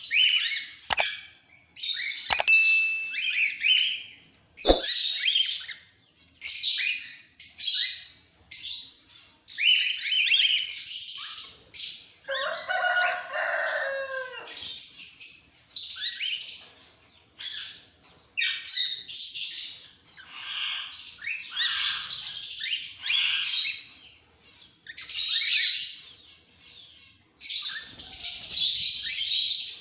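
A flock of cockatiels calling with many short, high chirps and screeches one after another; about twelve seconds in, a lower, longer call wavers and falls in pitch. A few sharp clicks come in the first five seconds.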